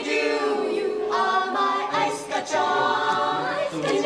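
A mixed choir of male and female voices singing a cappella in harmony, holding sustained chords with short breaks between phrases.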